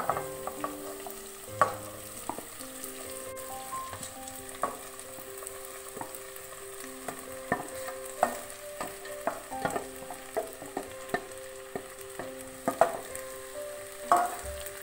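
Spatula scraping soaked sago pearls out of a steel bowl into a pan of sautéed vegetables and stirring them in, with repeated sharp taps and scrapes of the spatula on bowl and pan. Soft background music with held notes runs underneath.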